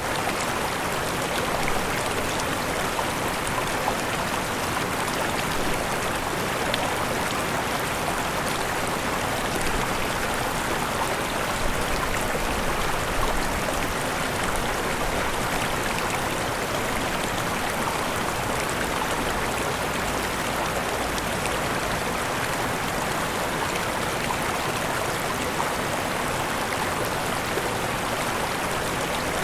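Falling water from a waterfall: a steady, even rush with fine splashing.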